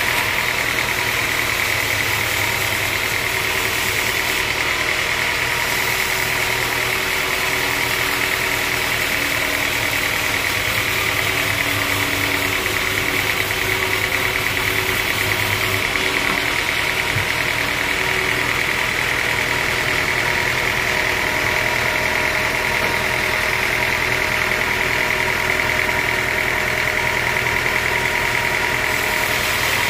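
Band sawmill cutting lengthwise through a large mahogany log: the machine's steady running drone with a high, even whine from the blade in the wood.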